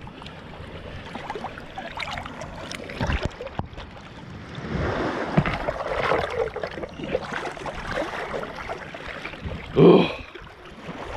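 Water sloshing and splashing around a camera held at the surface as a snorkeler swims through shallow river water, with wind on the microphone. A short, loud voice-like burst comes near the end.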